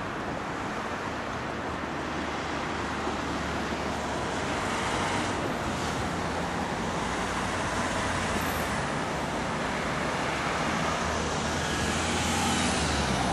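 Road traffic: cars passing on the street, a steady wash of tyre and engine noise that grows a little louder toward the end.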